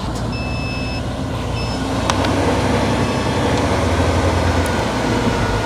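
Tipper truck's diesel engine running steadily while its hydraulics raise the loaded dump body to tip coal, growing slightly louder. A short high beep sounds near the start, and there is a faint click about two seconds in.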